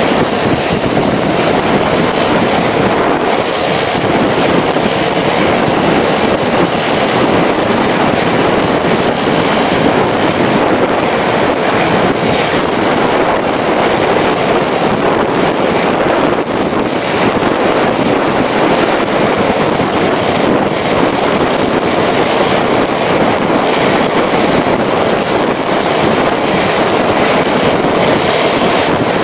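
Steady rushing of wind and road noise from a vehicle driving along a paved road, picked up by a camera mounted on its bonnet with wind on the microphone.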